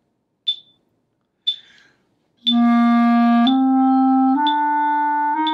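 Metronome clicking once a second at 60 beats per minute. About two and a half seconds in, a clarinet starts a slow C major scale on the beat, holding each note for one click and stepping up through four notes.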